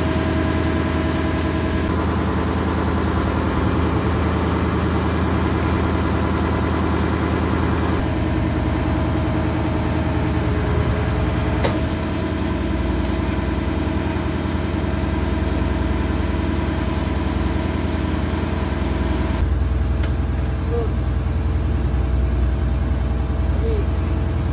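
An engine running steadily, its sound changing abruptly about two seconds in, again around eight seconds and once more near twenty seconds. There is a single sharp click about halfway through.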